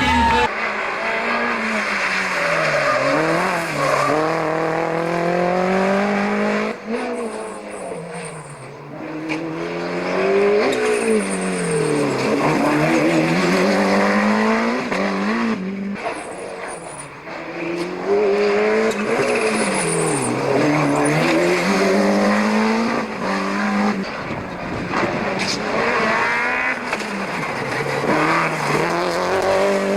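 Rally car engines being driven hard, the revs climbing and dropping again and again through gear changes and lifts for bends. Brief high tyre squeals come in a few times.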